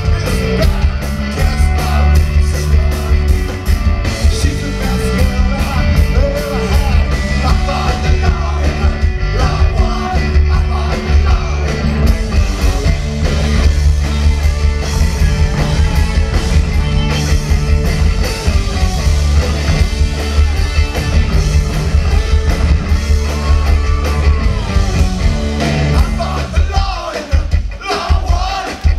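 Live rock band playing loudly, with electric guitars, bass, drums and a shouted lead vocal. The full band sound drops away shortly before the end.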